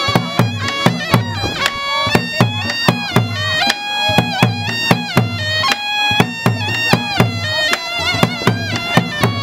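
Cham ritual music: a reedy double-reed shawm (saranai) playing a held, ornamented melody over a steady run of drum beats.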